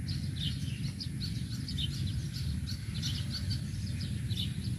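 Small birds chirping over and over, short high calls, over a steady low rumble.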